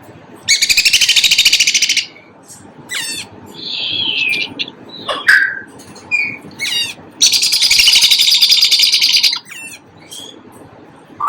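Baby red-bellied parrot begging during syringe feeding: two long, loud stretches of rapid pulsed chattering calls, each about one and a half to two seconds, with shorter high chirps between them. This is the chick's feeding response as formula is pushed into its crop.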